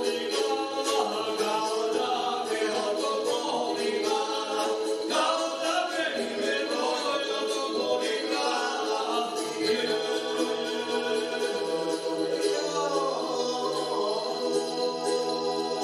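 Live Serbian traditional folk music: a melody sung over a steady, unbroken drone.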